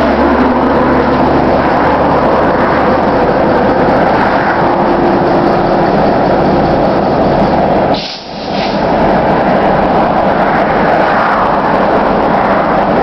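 Norfolk Southern GP38-2 diesel-electric locomotive with its EMD 16-cylinder two-stroke engine running, a steady low drone, as it moves slowly with a string of tank cars. The sound drops out briefly about eight seconds in.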